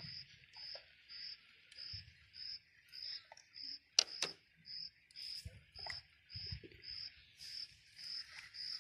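Insects chirping steadily, a short high chirp repeating a little under twice a second over a continuous high hiss, with a sharp click about four seconds in.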